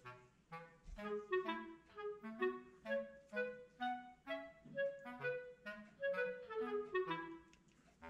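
Background music: a lively melody of short, quick notes, about three to four a second, over a simple bass line, pausing briefly near the end.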